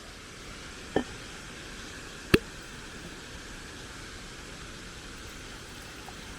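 Two sharp knocks of camping cookware being handled, one about a second in and a louder one about a second and a half later, over a steady rushing background.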